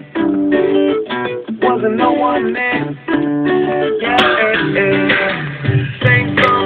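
Song playing: plucked guitar notes with no vocals, a heavier bass coming in about two-thirds of the way through.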